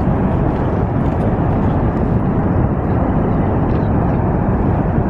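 Niagara Falls' water pouring, heard as a steady, loud rush of noise that is heaviest in the low end.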